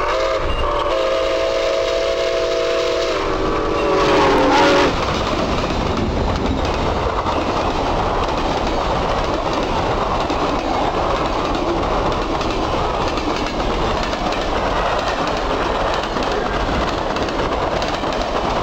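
Milwaukee Road 261, a 4-8-4 steam locomotive, blows its steam whistle for about five seconds, a chord of several tones that dips in pitch as it cuts off. Then the locomotive and its passenger cars roll past close by with a steady heavy rumble.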